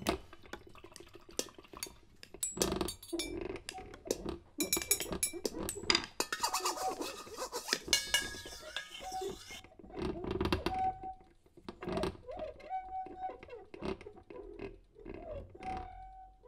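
Improvised percussion on household objects: scattered clinks and knocks, a dense rattling passage about six seconds in that lasts a few seconds, and several short ringing tones, all at one pitch, in the second half.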